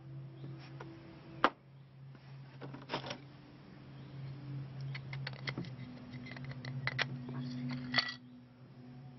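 Small hard resin orgonite pieces clicking and tapping against each other and a plastic tray as they are picked up and handled: a sharp click about one and a half seconds in, a few more near three seconds, and a run of light clicks from about five to eight seconds, over a steady low hum.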